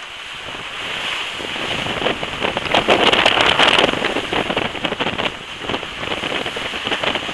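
Wind buffeting the microphone over the rush of water along the hull of an F27 Corsair trimaran sailing downwind at about 9 knots. It swells to its loudest three to four seconds in, then eases a little.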